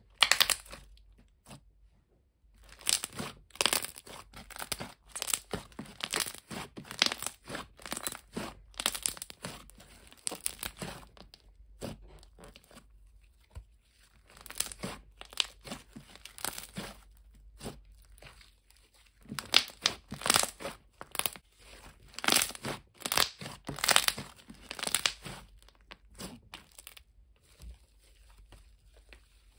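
Thick, glossy slime being squeezed, poked and stretched by hand, giving off bursts of quick pops and crackles from air bubbles trapped in it. The bursts come with brief pauses and grow quieter over the last few seconds.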